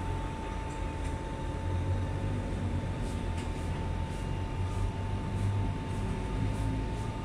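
Steady low machinery hum with a thin steady high tone running under it, and a few faint clicks.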